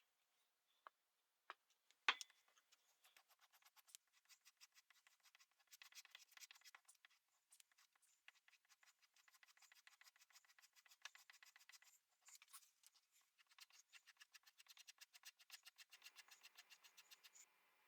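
A few sharp clicks, then a steel Bowie knife blade drawn in quick, evenly repeated scratching strokes across a sharpener, several strokes a second, faint.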